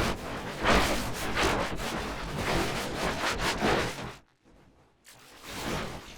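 Stuttering, glitched logo sound effects: noisy hissing bursts that repeat a few times a second, cut off about four seconds in, and come back faintly near the end.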